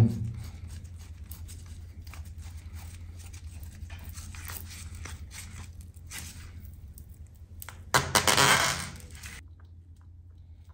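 Spin-on oil filter on a Suzuki SV650 being loosened with a cap-style filter wrench: scattered small clicks and creaks, then a louder rasping, crunching noise lasting over a second near the end that cuts off suddenly. A low steady hum runs underneath.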